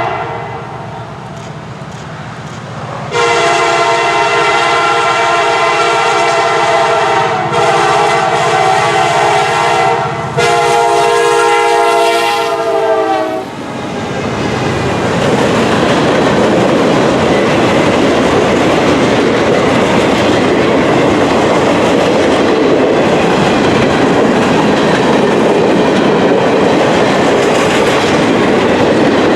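Locomotive air horn sounding several long blasts with a chord of tones, the last one sliding down in pitch as the locomotive passes. The train then rolls by with a steady rumble and clatter of wheels on rail joints.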